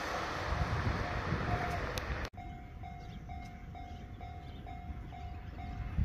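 A train passes over a Japanese level crossing, its rolling noise loud until it cuts off abruptly a little over two seconds in. The crossing's electronic warning bell rings through it, about two dings a second, and is heard clearly on its own once the train noise stops.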